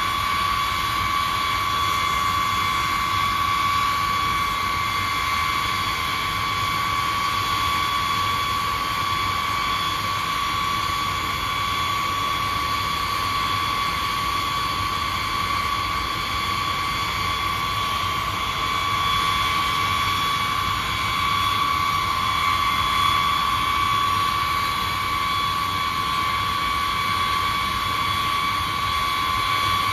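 B-52H's Pratt & Whitney TF33 turbofan engines running steadily, a constant whine over a broad jet rush.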